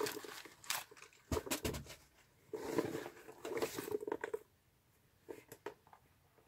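Handling noise of a fabric crossbody bag and its packaging: irregular rustles and soft clicks, a longer rustling stretch in the middle, then only a few faint clicks near the end.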